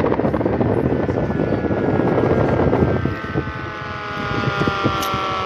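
A loud, rough noise with no clear tone for about three seconds cuts out sharply. An outdoor tornado warning siren is then heard winding down: several tones falling slowly together in pitch.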